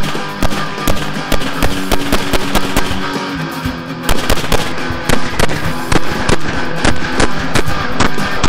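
Rapid rifle fire from a Smith & Wesson M&P15 VTAC II carbine, several shots a second with a brief break just before the middle, under rock music with electric guitar.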